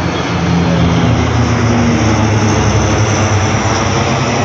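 Fighter jets flying close overhead: a loud, steady jet-engine rush and rumble that swells a little about half a second in.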